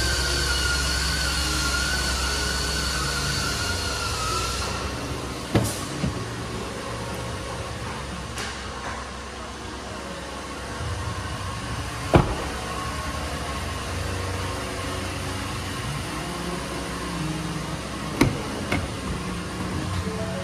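Shop room noise with a wavering high-pitched whine that stops about four and a half seconds in. After that come three sharp clicks several seconds apart, from the pickup's doors being unlatched and opened.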